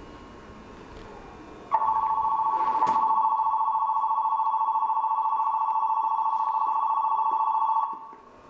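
Electronic station-platform departure bell ringing: a steady, trembling two-tone ring that starts suddenly about two seconds in, lasts about six seconds, and cuts off near the end.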